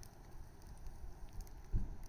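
Wood bonfire burning: a constant low rumble with scattered faint crackles and small pops. A dull low thump about three quarters of the way through is the loudest moment.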